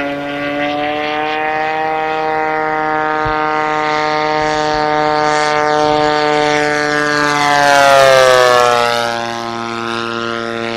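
Desert Aircraft DA-70 twin-cylinder gas engine and 24x10 carbon propeller of a large RC aerobatic plane running in flight with a steady, slowly rising drone. About eight seconds in the plane passes close, at its loudest, and the pitch drops as it flies by.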